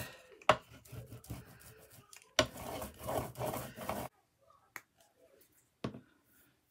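A paint-laden hand tool scraping and rubbing acrylic paint across paper in repeated strokes, with sharp clicks as it is set down and lifted. The scraping stops about two-thirds of the way through, leaving a couple of light knocks.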